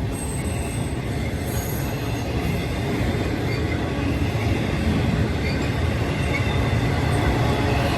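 Intermodal freight cars (container well cars and trailer-carrying spine cars) rolling past on the rails in a steady, continuous rumble of wheels on track that grows slightly louder. A faint high wheel squeal sounds in the first couple of seconds.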